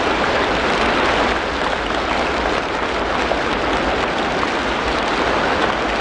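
Steady rain falling: an even, dense hiss of drops that does not let up.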